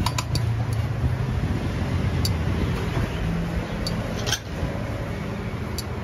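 Steady low rumble and hum of shop and street background noise, with a few light clicks of metal serving tongs against steel food trays.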